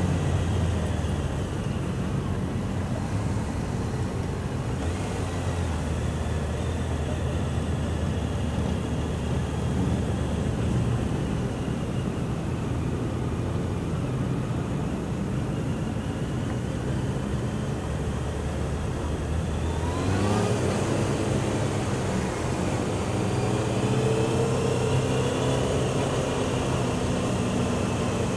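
Honda CBR600F sports bike's inline-four engine running at low speed among other motorcycles, picked up through a helmet microphone. The revs rise once about two-thirds of the way through.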